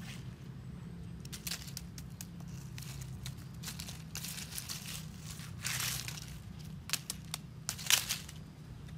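Dry fallen leaves and twigs rustling and crackling in irregular bursts as a kitten moves and plays in the leaf litter, the loudest crackle near the end, over a steady low hum.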